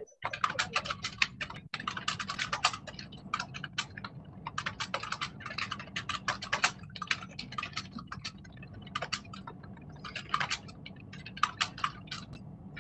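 Typing on a computer keyboard: quick runs of key clicks in bursts with short pauses, over a low steady hum, picked up by a video-call microphone.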